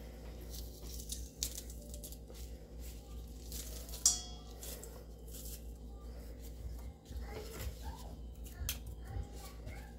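Metal garlic press squeezing garlic cloves over a stainless steel bowl: faint clicks from the hinged press, with one sharp metallic click about four seconds in.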